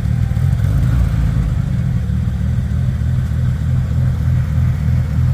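Ford Cortina's turbocharged Pinto four-cylinder engine running steadily through a new stainless steel exhaust, with an even, pulsing beat. The engine sounds a little tappety, which the owner takes for valve tappets needing adjustment.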